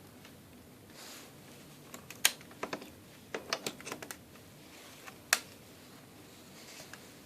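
Small sharp plastic clicks and taps, a dozen or so in loose clusters, from a cable's HDMI plug being handled and pushed into an Android TV box's port. The loudest click comes a little past five seconds in.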